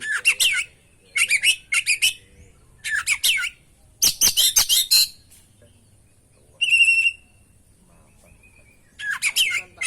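Oriental magpie-robin singing in short, rapid phrases of high, fast-changing chirping notes with pauses between, about six phrases in all. About two-thirds of the way through comes one held whistled note.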